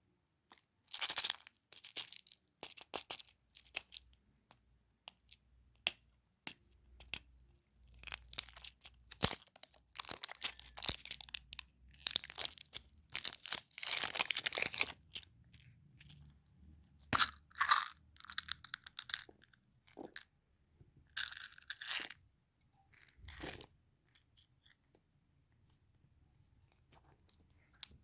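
Candy packaging being handled and opened: irregular crinkling, tearing and crackling of wrappers, with sharp clicks and taps and short pauses between bursts.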